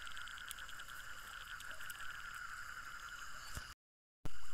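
Night chorus of insects and frogs: a steady high buzz with a fast pulsing trill over it for the first couple of seconds. The sound cuts to silence for half a second near the end, then comes back louder.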